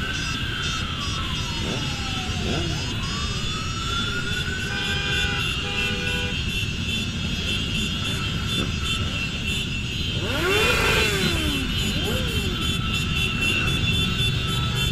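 A dense crowd of motorcycle engines rumbling at low speed, with riders revving their engines in rising and falling sweeps. About ten seconds in, several bikes rev together, the loudest moment.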